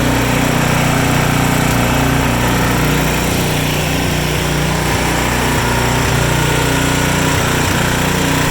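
Ariens Professional snowblower's 420cc single-cylinder engine running steadily at constant speed.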